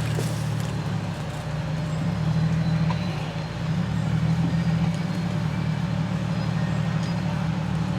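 Off-road vehicle's engine running steadily at low revs, with small swells in level.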